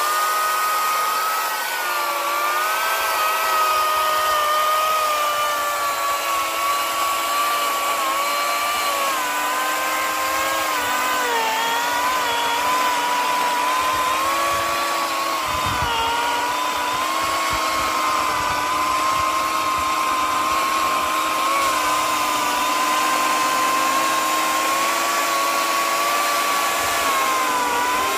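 Makita electric chainsaw running and cutting through a thick tree trunk: a steady motor whine whose pitch dips briefly several times as the chain bites into the wood.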